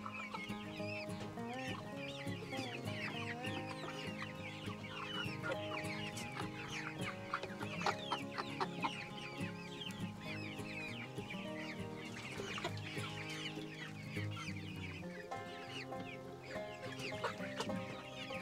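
A flock of young hens clucking and chattering, many short high calls overlapping throughout, with background music underneath.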